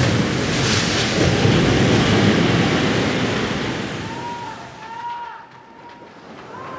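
Stage sound effect of a rushing, surf-like wash of water that starts suddenly and fades away over about four seconds. A few faint, short high chirps come in during the second half.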